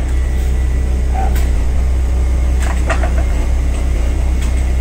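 Steady, loud low machinery hum, unchanging throughout, with a couple of faint short clicks about a second in and again around three seconds.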